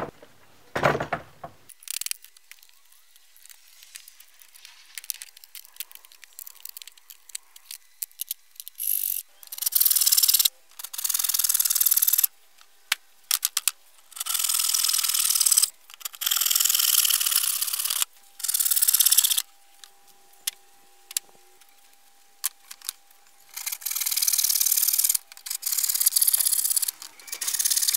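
Hand saw cutting through wooden pallet boards: bouts of quick rasping strokes a few seconds long, with short pauses between. Before the sawing starts, about a third of the way in, there are only a few scattered knocks and clicks.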